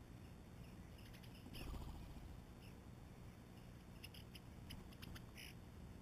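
Near silence outdoors, broken by a brief low thump with a rustle about a second and a half in, then a scatter of faint clicks and a few short high chirps near the end, from small birds coming and going at a mealworm feeder.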